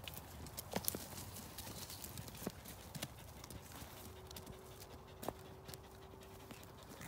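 Sheep moving about on dry, twiggy ground: faint shuffling hoof steps with a few sharp clicks and knocks, the loudest about a second in and about five seconds in. A faint steady hum comes in during the second half.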